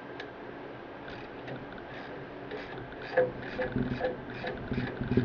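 Hand socket ratchet being worked in short back-and-forth strokes, clicking about two to three times a second, getting louder with heavier knocks about three seconds in.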